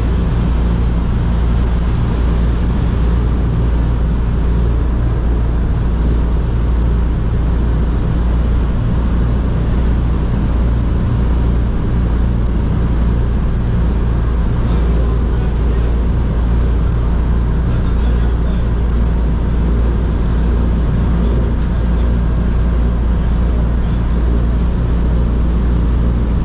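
A C-47's twin Pratt & Whitney R-1830 radial engines droning steadily in flight, heard from inside the cabin.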